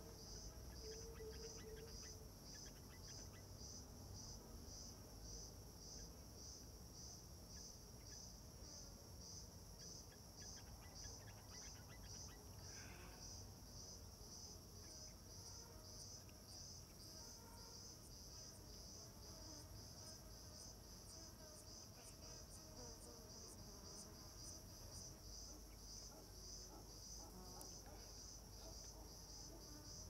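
Faint insects chirping in a steady, evenly pulsing high-pitched rhythm.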